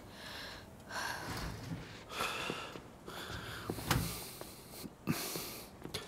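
A person breathing hard: about five loud, breathy breaths and sniffs, each lasting around a second. A short knock comes about four seconds in.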